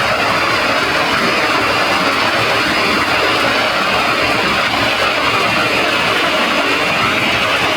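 Heavily effects-processed audio, distorted into a dense, music-like din with a robotic edge. It is loud and unbroken, with no pauses.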